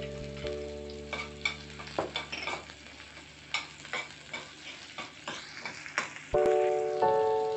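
A metal spoon scrapes and clinks against a stainless-steel pan as chopped onion with crushed ginger and garlic is stirred in hot oil, over a light sizzle. Piano background music comes in about six seconds in and is louder than the stirring.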